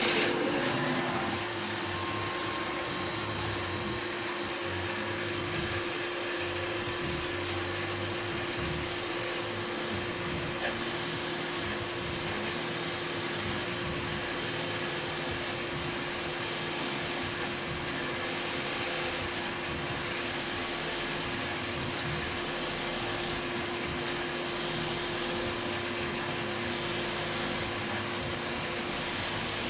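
CNC milling machine running a drilling program with a quarter-inch bit under flood coolant from a spindle-mounted coolant ring: a steady machine hum with a constant tone over the hiss of coolant spray, starting abruptly. A faint short high chirp repeats about every two seconds through the second half.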